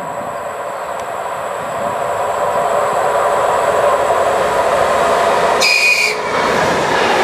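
DR1A diesel multiple unit approaching and passing: diesel engine and wheels on the rails, growing louder as it nears. A brief shrill tone sounds about six seconds in.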